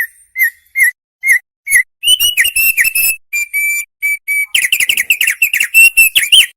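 An opior songbird singing: five short whistled notes evenly spaced, then from about two seconds in a fast string of high whistled notes that grows denser near the end.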